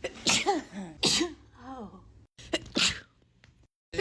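A person sneezing three times in quick succession in a sneezing fit brought on by allergies. Each sneeze is a sharp hissing burst, and the first two trail off in a voiced, falling cry. The sound cuts off abruptly between sneezes where the loop is spliced.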